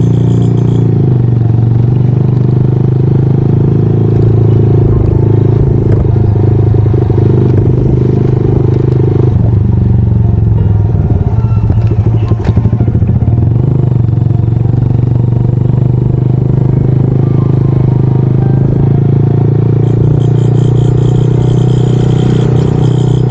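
Honda Monkey 125's single-cylinder four-stroke engine running steadily under way, heard from on the bike, with a single knock about halfway through.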